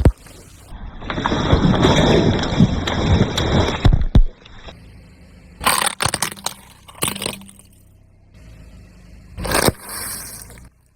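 Car tyre rolling over and crushing objects: a long stretch of crunching and cracking with sharp snaps near the end of it, then several shorter crunches.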